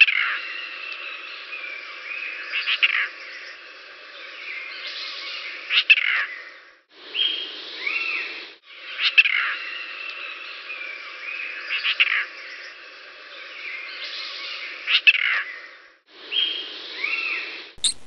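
Bird chirps and short falling calls in a dubbed nature soundtrack that loops and cuts off abruptly in places. Near the end there is a quick burst of sharp clicks.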